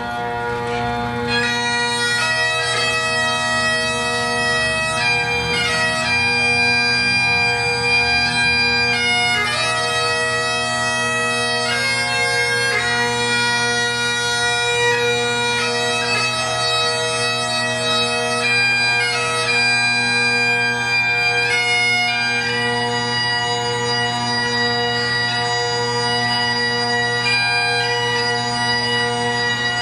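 Bagpipes playing a slow tune over a steady, unbroken drone, the melody notes changing every second or so.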